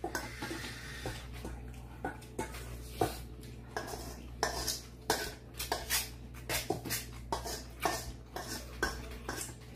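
Metal spoons clinking and scraping against stainless-steel mixing bowls as rice and seasoned bean sprouts are stirred together, in irregular clinks about a second apart.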